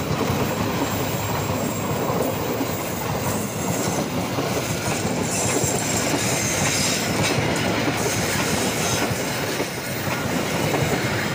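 Passenger train coaches running past at speed, a steady noise of steel wheels on the rails.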